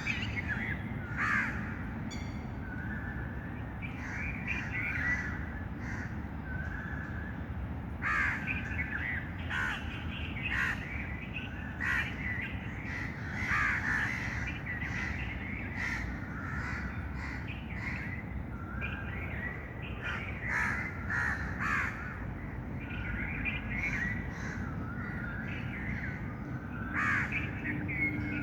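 Birds calling in many short, irregular calls, with a steady low rumble of background noise underneath.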